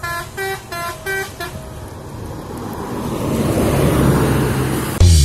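A multi-tone 'telolet' bus horn plays a quick tune of about five short notes. Engine and road noise then swell, and a sudden loud low thump comes just before the end.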